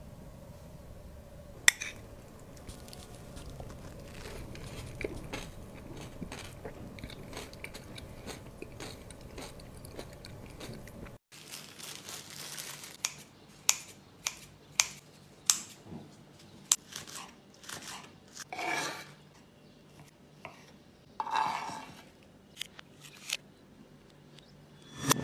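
Scissors snipping and crinkling the plastic wrapping of a pack of lavash flatbread: a run of sharp snips and clicks, with longer rustles of the film. This follows a stretch of faint steady background noise. Near the end comes a single sharp crack, typical of an egg knocked on the rim of a porcelain bowl.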